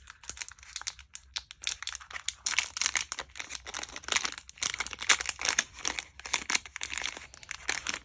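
Packaging of a replacement clipper motor crinkling and tearing as it is opened by hand: a dense run of irregular crackles.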